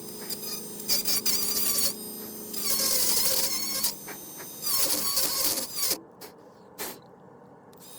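Dremel rotary tool running and grinding in repeated bursts of about a second each, cutting Acraglas bedding compound out of the rifle stock's trigger area. About six seconds in the grinding stops, followed by a couple of light knocks.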